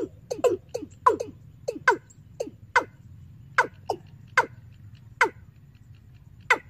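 Recorded 'ayam tembaga' bird-lure call played through a horn loudspeaker from a bird-trapping amplifier: a series of short, sharp notes, each falling in pitch, coming several a second at first and then slowing to single notes about a second apart, over a steady low hum.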